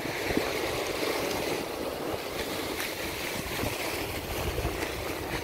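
Sea swell washing and breaking against a rocky shoreline, with wind buffeting the microphone.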